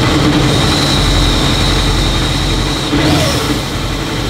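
Supercharged Kawasaki engine of a jet boat running loudly just after catching on its first start, with a steady high whine over it and a short rise in pitch about three seconds in as the throttle is tapped.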